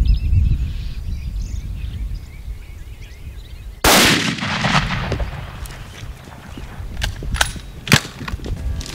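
A single rifle shot about four seconds in, its report echoing away for about a second. A few short, sharp clicks and knocks follow near the end.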